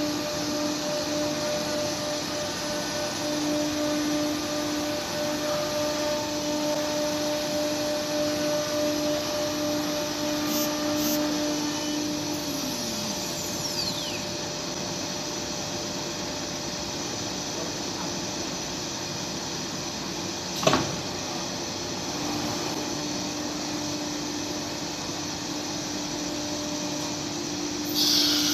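CNC router running with steady machine and extraction noise; the spindle's steady whine falls away in a falling glide about 12 seconds in. A single sharp short crack comes about 21 seconds in, the steady whine returns about a second later, and a loud high hiss starts near the end.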